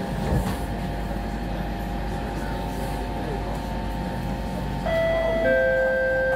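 Inside a Siemens C651 train car standing with its doors shut: a steady hum, with a single knock near the start. About five seconds in, the GTO-VVVF traction inverter starts up with loud held tones that step down in pitch as the train begins to pull away.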